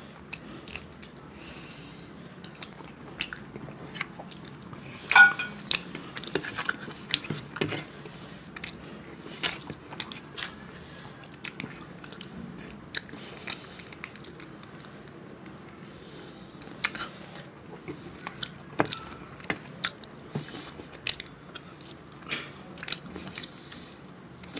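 Close-up eating sounds of a person chewing rice and curry eaten by hand: irregular wet smacks and small clicks of the mouth, with fingers now and then gathering food on a steel plate. One sharper click stands out about five seconds in.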